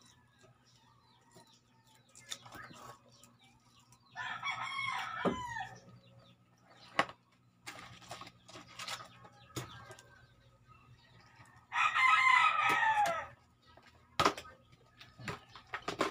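A rooster crowing twice, about four seconds in and again about eight seconds later, each crow lasting about a second and a half and falling off at the end. Scattered light clicks and knocks are heard between the crows.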